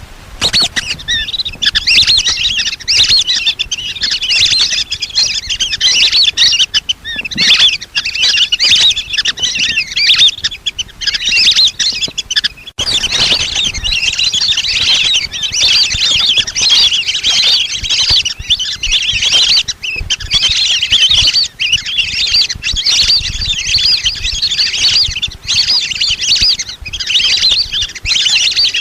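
A flock of lesser whistling ducks calling without pause, a dense chatter of high whistled notes, broken off for an instant about halfway through. It is the birds' calling used as a lure call to draw them in.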